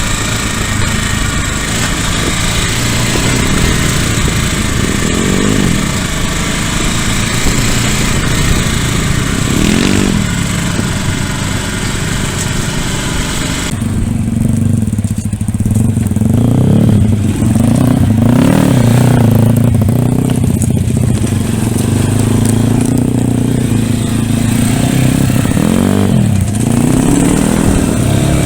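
Single-cylinder pit bike engine being ridden, its pitch rising and falling as the throttle is opened and closed. About halfway through, the high hiss drops away suddenly and the low engine note stands out more.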